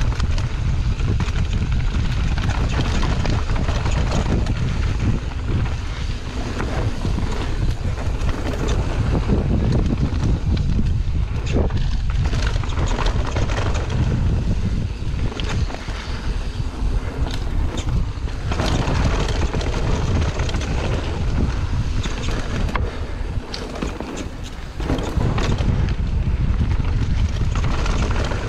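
Wind buffeting the microphone of a mountain bike rider's action camera on a fast dirt-trail descent, with tyre noise and scattered clicks and knocks from the bike over rough ground.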